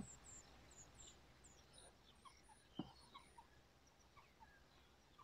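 Near silence with faint, scattered high chirps of small birds, and a single soft tap near the middle.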